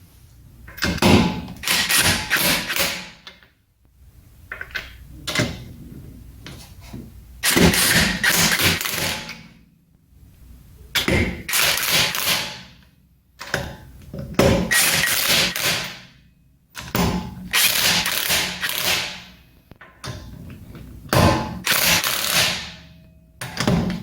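Lug nuts being run onto a car's rear wheel studs and snugged with a hand wrench, in about seven separate bursts of one to three seconds each.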